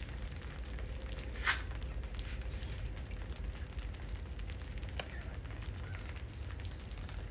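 A crowd of field rats feeding on rice grain: a steady crackle of nibbling and scrabbling over a low hum, with one brief louder sound about one and a half seconds in.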